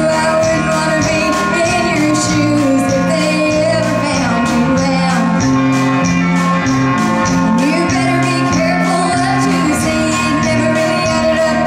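Live band music: a young female vocalist sings lead into a microphone over electric guitar and a steady beat.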